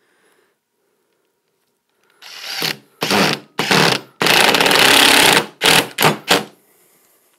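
Cordless drill driving small wood screws through a jar lid into a wooden block. Its motor starts about two seconds in with a few short runs, then one longer run of about a second and a half, and ends with three quick blips.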